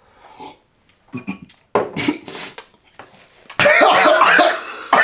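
A person coughing and clearing the throat, gagging on the burn of a very hot sauce, with short bursts at first and heavier, louder hacking from about three and a half seconds in.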